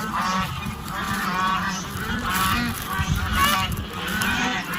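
Domestic geese honking, several birds calling over one another about twice a second.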